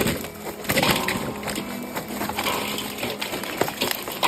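A run of irregular sharp clicks and knocks, hard objects clattering, over a faint steady low hum.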